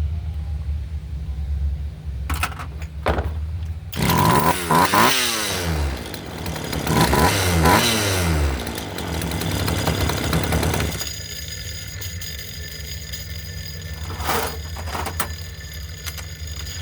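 Two-stroke Craftsman chainsaw engine running, revved up and down several times in the middle, with steady running before and after and a few short clatters.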